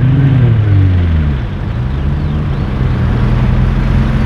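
Turbocharged Lexus SC300's straight-six engine just after a burnout: the revs fall off over the first second and a half, then it runs steadily at low revs as the car rolls forward.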